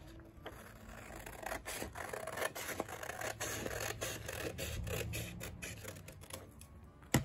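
Scissors cutting through a sheet of printer paper along a line: a run of short snips with the rasp of the blades slicing the paper. A sharp click comes at the very end.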